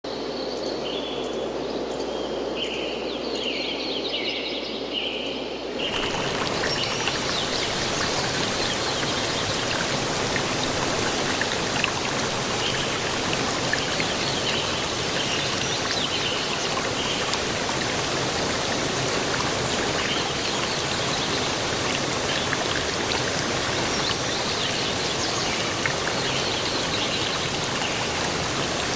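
A steady rush of water, with a bird calling in short repeated notes over it. About six seconds in, the sound cuts suddenly to a louder, fuller water noise, with faint bird chirps still above it.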